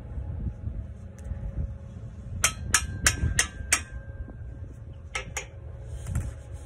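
A hammer tapping the foot of a metal brickwork profile to knock it round square. There are five quick ringing taps, then two more a little later.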